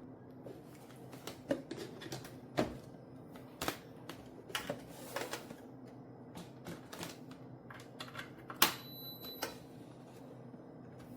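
Irregular clicks and light knocks over a faint steady hum; the loudest click, about nine seconds in, is followed by a brief high tone.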